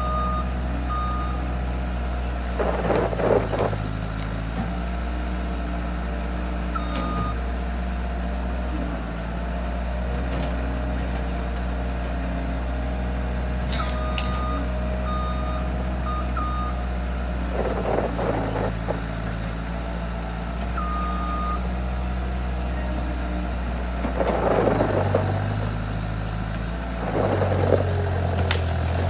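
Bobcat skid loader's diesel engine running steadily, with its backup alarm beeping on and off as the machine reverses. Several short, louder bursts of noise come over it, and the engine's pitch shifts near the end.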